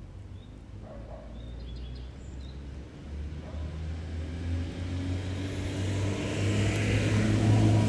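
A motor vehicle's engine hum grows steadily louder through the whole stretch, as a vehicle approaches.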